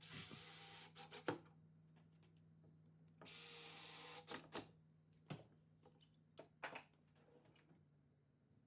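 Wooden cabinet drawers sliding on their runners, a hissing rub of about a second twice, each followed by light knocks as the drawer stops, with a few more knocks after.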